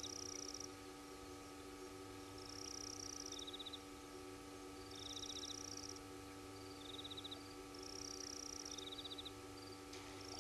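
Two small night callers trading short, high-pitched pulsed trills in turn, one a little higher and longer than the other, repeating about every two and a half seconds. A steady low hum runs underneath, and there is a faint click near the end.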